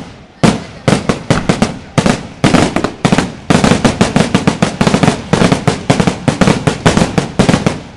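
Fireworks display: a fast barrage of aerial shell bursts and bangs, several a second, growing denser about halfway through and breaking off just before the end.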